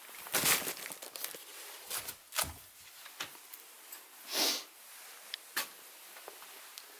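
Someone moving around a small room: scattered steps, knocks and rustling, with a short breathy hiss about four and a half seconds in.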